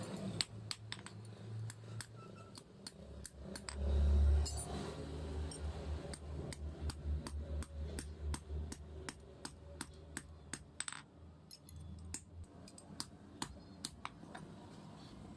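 Light metallic clinks and taps, about two or three a second at an uneven pace, from metal being worked and handled, with one heavier low thud about four seconds in.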